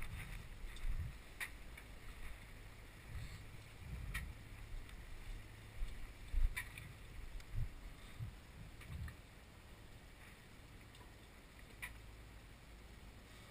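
Low, uneven rumbling knocks and buffeting aboard a boat at sea, easing off about two thirds of the way in, with a few sharp, isolated clicks scattered through.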